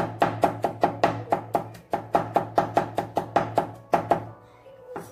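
Cleaver chopping garlic on a wooden cutting board: quick, even knocks, about five a second, with a short pause near the end.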